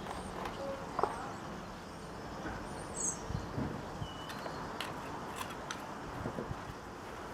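Steady low background noise with scattered light clicks and taps and a few brief high chirps.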